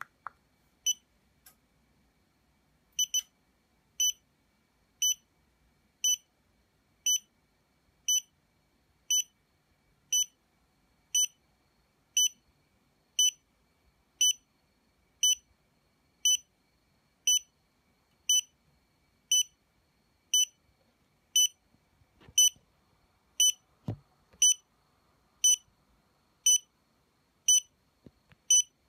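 Xiaomi Yi action camera beeping steadily, a short high beep about once a second, while it installs a firmware update. A faint click of its power button comes at the start, and a single dull knock comes near the end.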